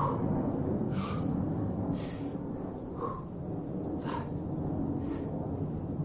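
A man breathing hard and rhythmically from exertion during bodyweight squats, blowing out sharply through pursed lips about once a second, in time with his reps.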